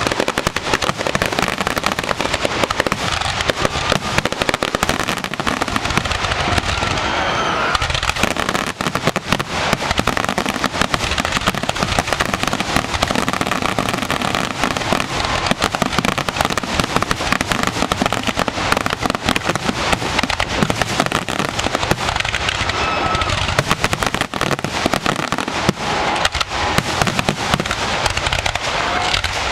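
Fireworks finale: aerial shells bursting in a dense, unbroken barrage, bangs overlapping with crackle and no let-up.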